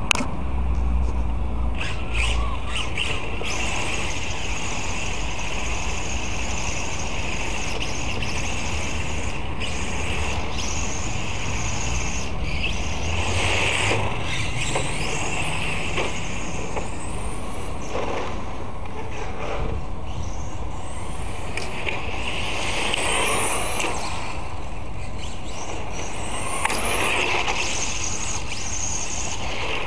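Electric RC touring car running on a 13.5-turn brushless motor: a whine that rises and falls in pitch as the car speeds up and slows, swelling loudest a few times. A low rumble sits underneath, strongest in the first few seconds.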